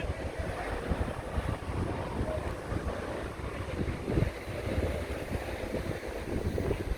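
Wind buffeting the microphone: a low, uneven rumble that gusts up and down, with no clear tones.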